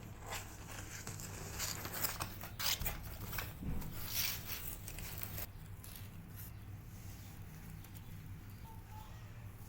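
Scratching and rustling: a run of short, sharp scrapes and clicks through the first half, then quieter, over a steady low hum.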